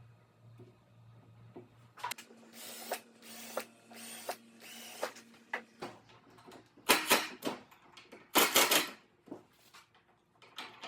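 Workshop tool noise: a series of short scraping strokes, with two louder ones near the end and a few sharp clicks, over a low steady hum.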